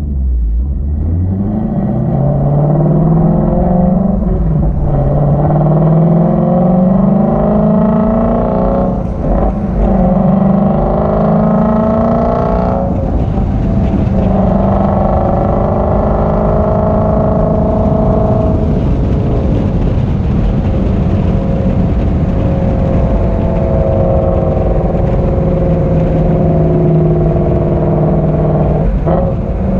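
Shelby GT350's 5.2-litre Voodoo flat-plane-crank V8, resonators deleted, pulling hard with its note climbing in pitch, broken by brief gear changes about 4, 9 and 13 seconds in. It then holds a steadier note that rises and falls, with another shift near the end.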